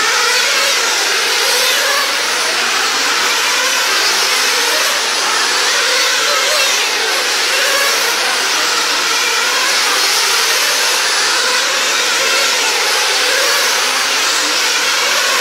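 Nitro-powered RC sprint cars' small two-stroke glow engines running at high revs on track, a steady high whine whose pitch rises and falls as the cars lap the oval.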